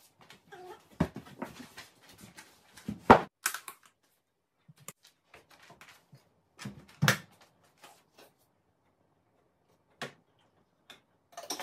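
Fabric rustling and irregular knocks and thumps as dark clothes are stuffed by hand into the drum of a front-loading washing machine, the loudest thumps about three and seven seconds in. A short click near the end as the detergent drawer is handled.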